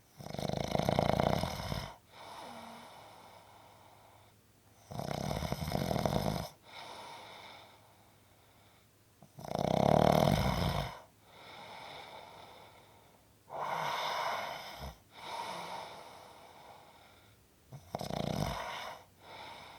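Snoring in a steady rhythm: five loud snores about four seconds apart, each followed by a softer, shorter breath.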